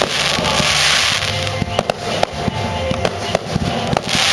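Aerial fireworks bursting in quick succession, with many sharp bangs and a crackling hiss about a second in, over music.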